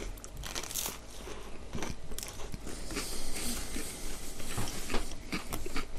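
Biting and chewing of pide kebab, with many short crunches from the crisp bread.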